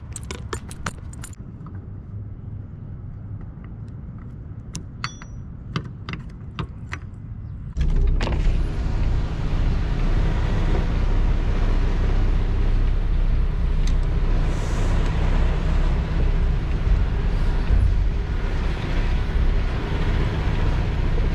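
Scattered clicks over a low hum at first. Then, about eight seconds in, the Peterbilt semi truck's diesel engine comes in loud and steady as heard from inside its cab.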